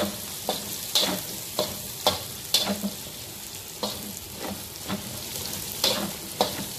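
Boiled beef chunks and chopped onion sizzling in ghee in a large karahi, stirred with a metal spatula that scrapes and knocks against the pan at irregular moments, about one to two times a second.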